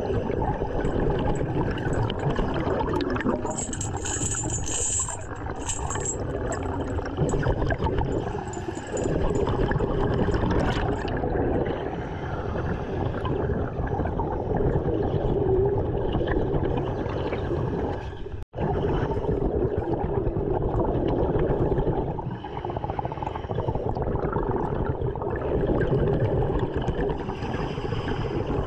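Underwater noise around a diver working the sea floor: a steady, dense wash of low water sound that cuts out for an instant about two-thirds of the way through.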